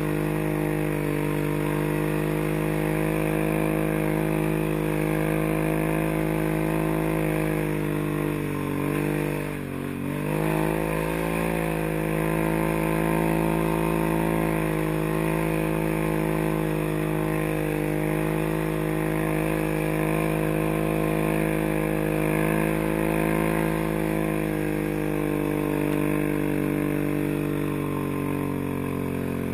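Tracked ATV's engine running steadily under load as it ploughs through fresh snow. About nine seconds in the engine note drops briefly and then climbs back.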